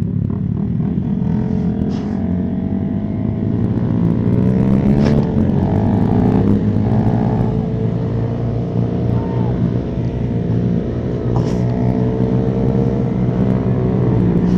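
Aprilia Shiver 900's V-twin engine running while under way, its revs rising and falling with the throttle.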